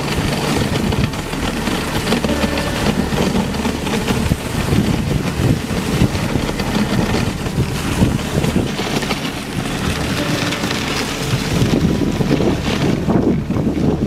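Moving dog sled on packed snow: the runners scraping and hissing, with wind buffeting the microphone.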